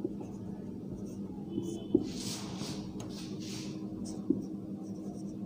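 Marker pen writing on a whiteboard: a few soft scratchy strokes about two to four seconds in, with a couple of light taps. A steady low hum runs underneath.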